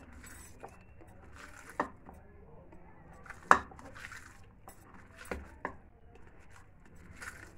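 Hand mixing and squeezing raw minced meat with paste and salt in a bowl: faint mixing sounds broken by about four sharp clicks against the bowl, the loudest about halfway through.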